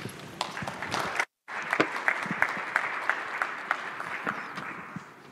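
Audience applauding, many hands clapping together, fading away near the end. The sound cuts out completely for a moment about a second in.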